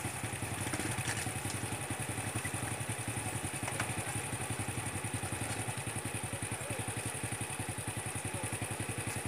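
Small motorcycle engines running at low revs with a steady, rapid putter as the bikes creep along.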